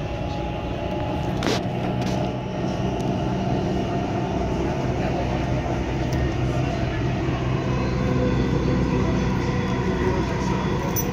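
Dubai Metro train running, heard from inside the carriage: a steady rumble and hum that grows a little louder, with a single sharp click about one and a half seconds in.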